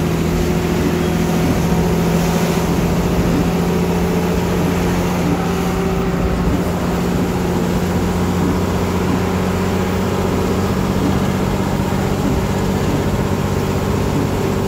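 Inside a moving bus on a wet road: a steady engine drone with a continuous hiss of rain and tyre noise.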